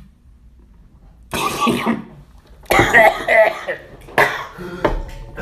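A man coughing and clearing his throat in three loud bouts, the first starting about a second in.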